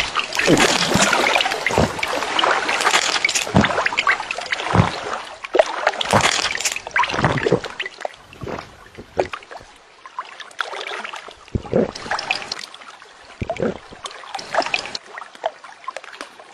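Water splashing and sloshing as a great cormorant thrashes its head and works a large fish down its throat: irregular sharp splashes, busy at first and sparser and quieter in the second half.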